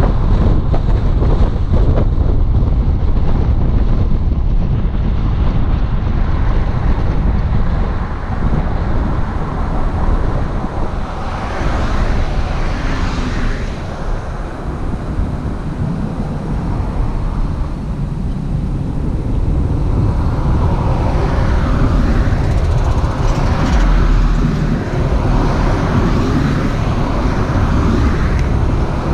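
Car driving on the road: a steady low rumble of road and wind noise, swelling louder twice.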